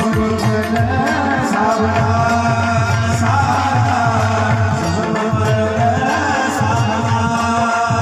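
Devotional kirtan music: tabla and dholak drumming a steady rhythm under a held drone and a melody that glides up and down.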